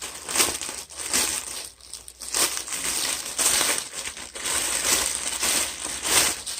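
Plastic packaging crinkling and rustling in irregular surges as it is handled and pulled open to get at the shorts.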